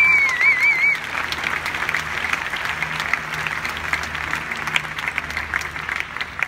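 Large crowd applauding, a dense patter of many clapping hands that eases off toward the end. A wavering high musical tone sounds over it for about the first second.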